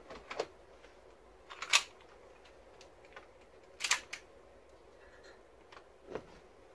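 A few sharp, separate clicks and knocks from a black pistol being picked up and handled among gear on a shelf: two light ones at the start, the loudest about two seconds in, another near four seconds and a fainter one near six.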